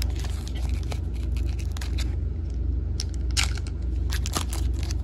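Foil Pokémon booster pack wrapper crinkling and being torn open by hand, a run of short sharp crackles and rustles, over a steady low hum.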